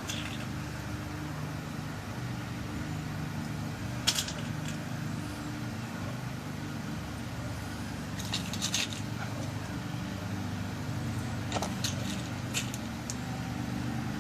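Small sharp clicks and ticks, a few at a time, as new pins are dropped into a lock cylinder being rekeyed, over a steady low hum. The loudest click comes about four seconds in, with small clusters near the middle and toward the end.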